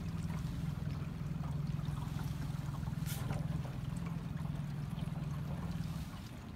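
Boat motor running with a steady low hum, under the sound of water moving around the boat, with one short knock about three seconds in; the hum eases off near the end.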